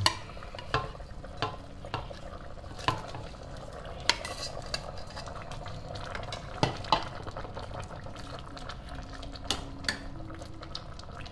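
Metal ladle stirring prawns into a stainless steel pot of simmering tom yum soup, with irregular clinks of the ladle against the pot.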